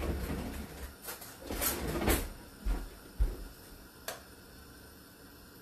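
A metal spoon handled against and dipped into a stainless steel pot of potato soup: several scrapes and dull bumps over the first few seconds and a sharp click about four seconds in, then only a faint steady hiss.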